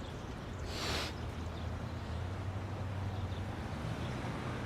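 A short breath drawn by the speaker about a second in, over a steady low hum.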